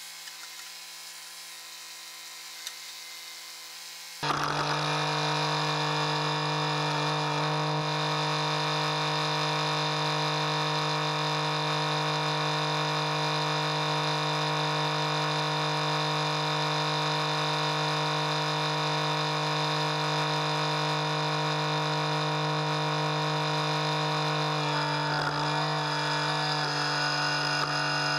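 Kubota compact tractor's diesel engine running steadily as the backhoe digs, a continuous hum with a high whine on top. About four seconds in it suddenly becomes much louder and closer, then holds steady.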